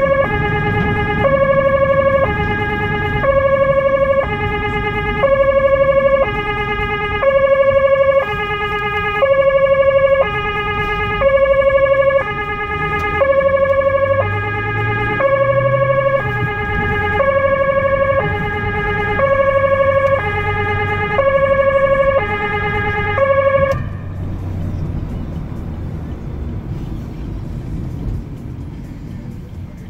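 Two-tone emergency-vehicle siren alternating steadily between a lower and a higher note, about a second each, heard from inside the car's cabin. It cuts off suddenly about 24 seconds in, leaving engine and road noise.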